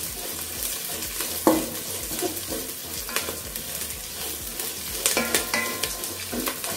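Ginger, garlic, green chillies, dried red chillies and curry leaves sizzling as they sauté in oil in a stainless steel pot, stirred and scraped with a wooden spatula, with a few sharper knocks of the spatula against the pot.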